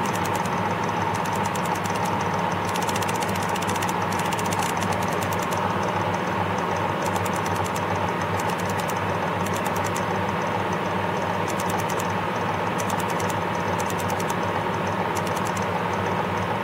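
Oilless air pump of an Envirotech APM 550 EL PM2.5 sampler running steadily, drawing air during sampling: a constant hum with a fast rattle on top.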